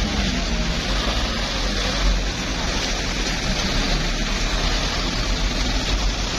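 Diesel engine of a loaded Mitsubishi Fuso light truck running steadily under heavy load as it pulls through deep mud, with a constant low rumble and a broad hiss over it.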